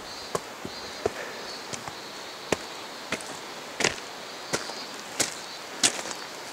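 A hiker's footsteps on a rocky trail: sharp clicks about every two-thirds of a second in a walking rhythm, over a steady hiss.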